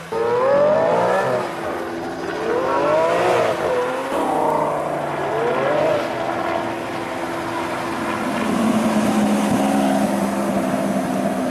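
Lamborghini V12 supercar engine revving hard, its note climbing in three separate pulls, then running on at a steadier pitch near the end.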